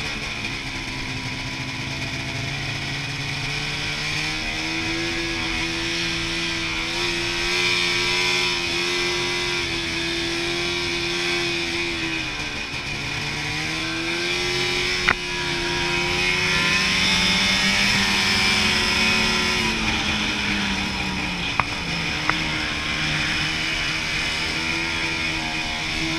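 Snowmobile engine running under throttle while riding, the note easing off and dropping in pitch around twelve seconds in and again a little after twenty seconds, then climbing back. A few sharp clicks come through about fifteen and twenty-two seconds in.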